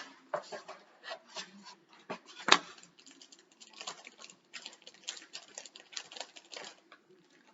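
Small plastic Lego pieces clicking and clattering as they are handled and sorted, in a quick irregular run of light ticks, with one sharper click about two and a half seconds in.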